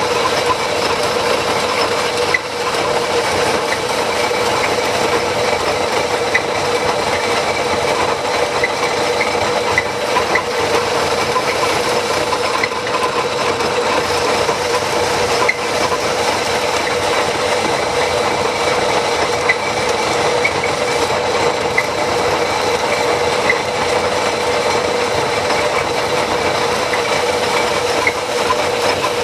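A motor-driven shop tool running steadily, with a constant hum and a dense scraping noise dotted with small ticks.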